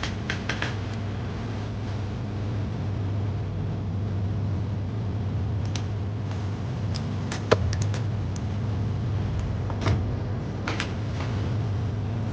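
Scattered small clicks and taps of tools working on a laptop's parts during disassembly, over a steady low hum.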